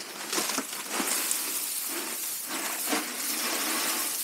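Coal-stove ashes pouring and sliding out of a metal ash pan onto the ground in a steady hiss, with a few knocks from the pan.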